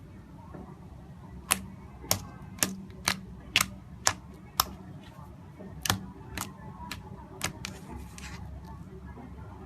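Slime being worked by hand, giving a run of sharp clicking pops, about two a second for a few seconds, then a few scattered ones.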